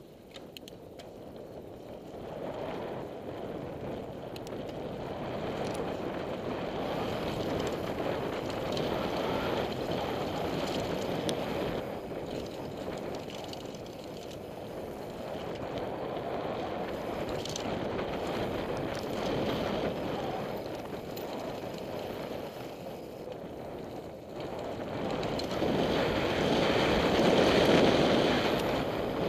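Downhill mountain bike ridden fast down a dirt forest trail: wind rushing over the helmet camera's microphone, with tyres rolling on dirt and occasional clicks and rattles from the bike. The rush builds as the rider speeds up and is loudest near the end.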